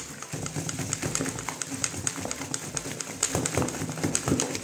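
Wire whisk beating thick batter in a stainless steel bowl: rapid, irregular clicks and taps of the wires against the metal, as the dough is mixed until fully combined.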